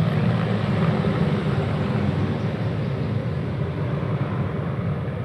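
Formation of military helicopters, an Mi-35 and Apaches, flying over with a steady low rotor and engine rumble that slowly fades.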